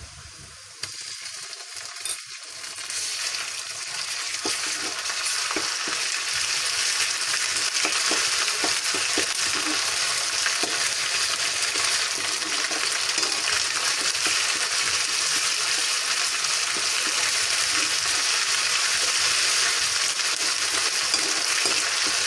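Onion, green chillies and ginger-garlic paste sizzling in hot oil in a kadai while being stirred with a spoon. The sizzle starts about a second in as the paste goes into the oil, grows louder over the next couple of seconds and then holds steady, with light clicks of the spoon against the pan.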